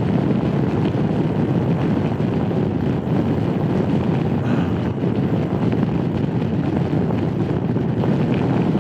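Steady rush of wind over the camera microphone while riding a Honda Forza 250 maxi scooter at road speed, with road and vehicle noise beneath it.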